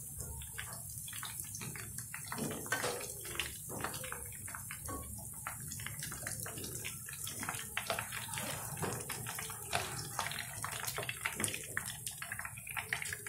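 Chả giò (Vietnamese pork spring rolls) frying in shallow hot oil in a pan: a steady sizzle full of small crackling pops.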